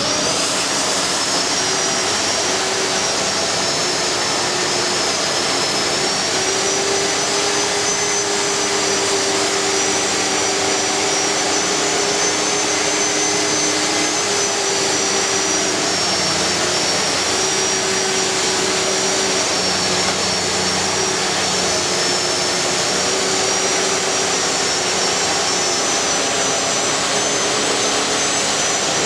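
Electric diamond core drill running steadily through concrete: a high motor whine over a constant rush of noise, with the pitch dipping slightly now and then as the load changes.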